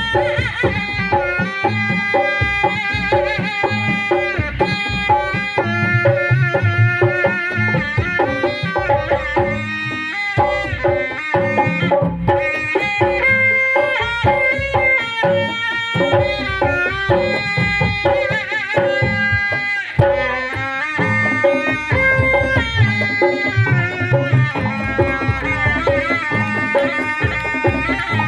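Traditional pencak silat accompaniment music: rapid hand-drum patterns under a sustained, wavering melody line, in the style of Sundanese kendang pencak.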